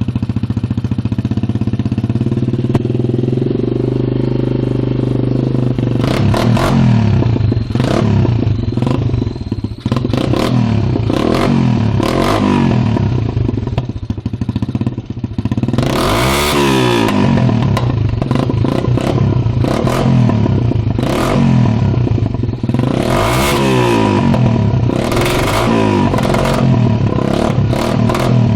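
Loncin 150cc single-cylinder four-stroke pit bike engine idling at first, then blipped and revved over and over, with a few longer revs rising and falling; its owner calls the sound bad.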